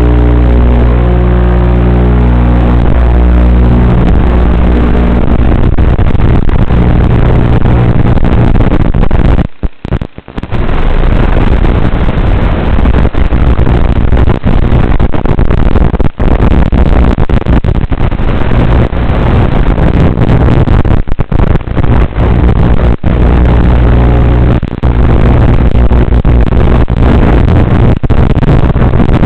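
Blade Torrent 110 quadcopter's motors and propellers whining in flight, heard over the analog FPV video link and heavily mixed with radio-interference static. The sound cuts in and out with the signal, dropping out briefly about ten seconds in.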